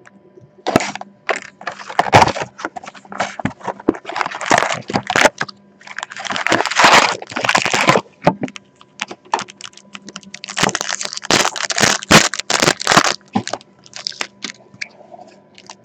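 Crinkling and tearing of a trading-card pack's wrapper, mixed with clicks and rustles of cards and packaging being handled, in irregular bursts with two longer runs of crinkling.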